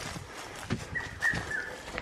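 Footsteps on dry grass and leaf litter as people walk quickly, with three short high chirps about a second in, the last one dropping in pitch.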